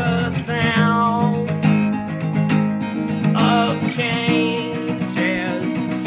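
Music: strummed acoustic guitar with a melody line that bends in pitch like singing.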